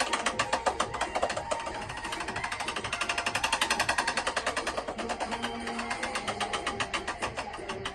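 Rapid, even clicking of a spinning prize wheel's flapper striking the pegs around its rim.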